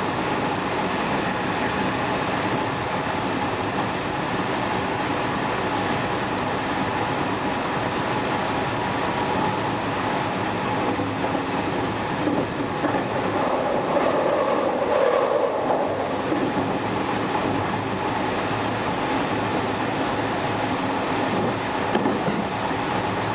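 JR West 207 series electric train car running at speed, heard from inside the car: steady rail and wheel noise with clatter over rail joints, and a steady whine from the Toshiba GTO-VVVF traction equipment. The sound swells briefly about two-thirds of the way through.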